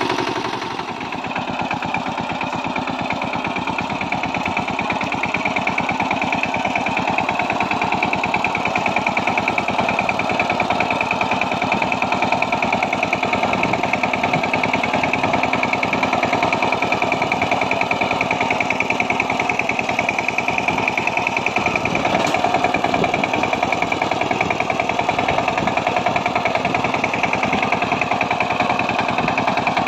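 Kamco power tiller's single-cylinder diesel engine running steadily with a fast, even beat as its rotary tines till dry field soil.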